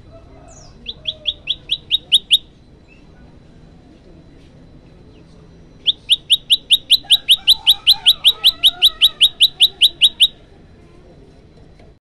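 Common tailorbird calling: two bouts of sharp, rapidly repeated rising chirps, about six a second. A short run of about eight notes near the start grows louder. A longer run of some two dozen notes follows in the second half.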